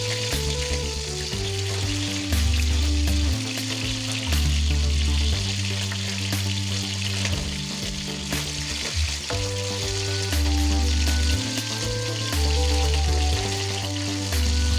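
Salmon head pieces sizzling in hot oil in a wok while being turned with tongs, with faint clicks of the tongs on the pan. Background music with deep bass notes about every two seconds is louder than the sizzle.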